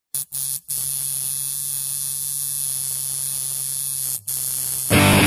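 Steady low electrical hum with hiss, cut off briefly three times. Punk rock music with electric guitar starts just before the end.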